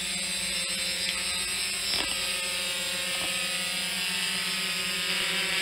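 FIMI X8 2020 quadcopter's propellers buzzing steadily as it hovers just after take-off, with a light click about two seconds in.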